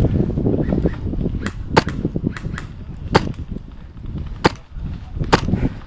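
Airsoft MTW designated marksman rifle firing single shots. There are four sharp cracks a second or so apart, with fainter clicks between them.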